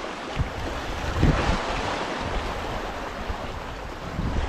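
Small sea waves washing and breaking over shoreline rocks, with a stronger wash about a second in. Wind buffets the microphone throughout.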